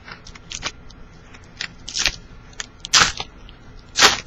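Trading cards being handled and flipped through: a run of light clicks and rustles of card stock, with three louder rustling snaps in the second half.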